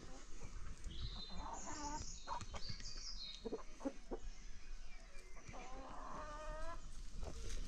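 Free-range chickens clucking, with a few high chirps in the first half and one longer drawn-out call lasting about a second, starting near six seconds in.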